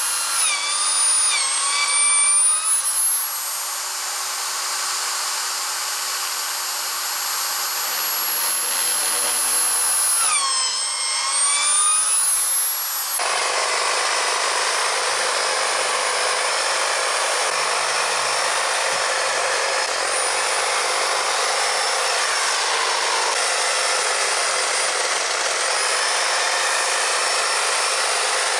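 Corded electric drill with a long wood bit boring into a painted wooden fence board: a high motor whine that sags in pitch as the bit bites and recovers, twice. About halfway it cuts off abruptly, giving way to a steadier, noisier power-tool sound.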